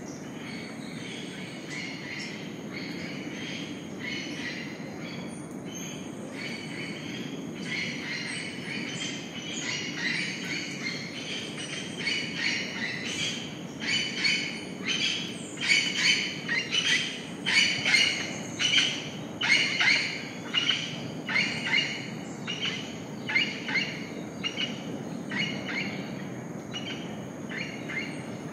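Rainforest dawn chorus: birds calling, with a run of short repeated notes, a little more than one a second, that grows louder toward the middle and then fades, over a steady low background hum.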